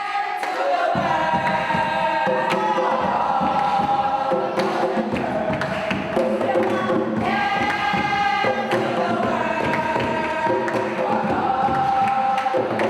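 Music with a choir of voices singing held notes that change every second or two.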